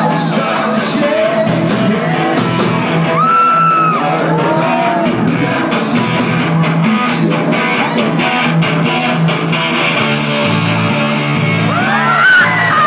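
Live rock band playing loudly, with a singer's voice carried over the PA through the band's bass, drums and cymbals.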